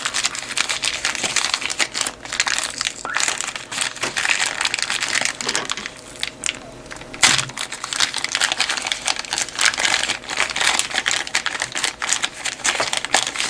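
A small postal packet and the little bag inside it being crumpled and unwrapped by hand: steady crinkling and crackling of the packaging, with one louder crack about seven seconds in.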